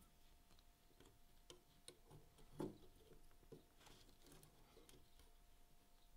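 Near silence with a faint steady hum and a few soft clicks and taps, the strongest about two and a half seconds in. The clicks come from handling a pocketknife and pen while a line is marked on the small blade.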